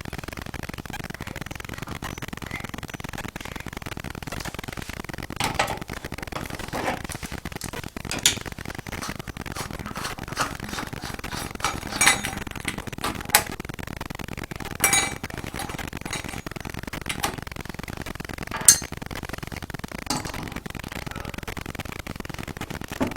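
Scattered sharp metallic clinks and clicks of a hand tool working on an old tub faucet valve, as a part of the valve is worked loose, over a steady hiss.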